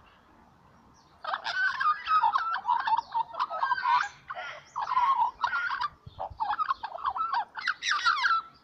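A young magpie warbling: a run of quick, gurgling, pitch-bending phrases starting about a second in, with a short break past the middle, and stopping near the end.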